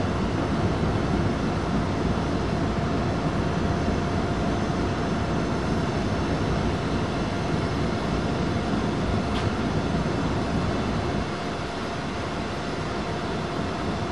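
2TE116 diesel locomotive's 16-cylinder diesel engines running as it creeps forward: a steady, dense engine drone with a constant high whine over it, easing slightly about eleven seconds in.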